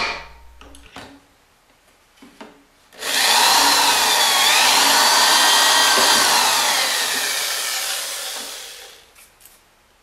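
Corded electric drill boring a hole through a PVC pipe: after a few light knocks, the motor starts about three seconds in and runs for about six seconds, its whine dipping in pitch as the bit bites into the plastic, then dies away about a second before the end.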